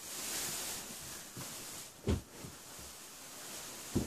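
Clear plastic wrapping around a flat-screen TV rustling and crinkling as it is pulled by hand, with a soft thump about two seconds in and another near the end.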